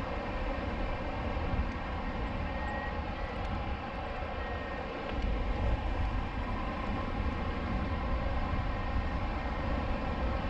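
Wind rushing over a wing-mounted camera's microphone on a hang glider in flight: a steady low buffeting rumble that grows a little louder about five seconds in.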